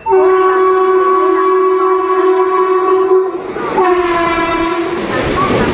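WCAM-3 electric locomotive's horn sounding as the train runs through the station without stopping. It gives one long blast of about three seconds, then after a short break a second, shorter blast. The rumble of the passing train rises near the end.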